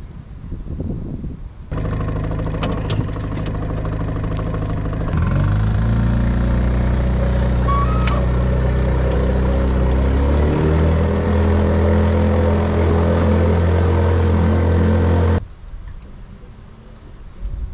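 A boat's outboard motor running under way. It comes in abruptly, speeds up about five seconds in, then holds a steady pitch before cutting off abruptly near the end.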